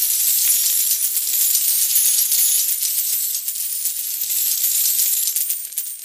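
Coin-shower sound effect: a dense rain of small metal coins clinking and jingling together, fading away near the end.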